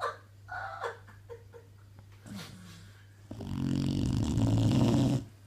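Dog snoring: a few short, quieter sounds in the first second and a half, then one long, loud snore lasting about two seconds, starting a little after three seconds in.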